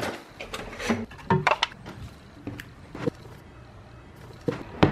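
Refrigerator door opened and food containers taken out and handled, giving a few scattered knocks and clicks, the loudest near the end.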